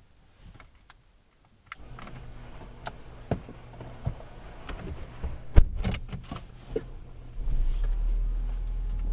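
Inside a car: a few clicks, then a steady low hum with scattered knocks and clicks, and one sharp thump a little past halfway. About seven seconds in, a louder, deeper steady rumble sets in.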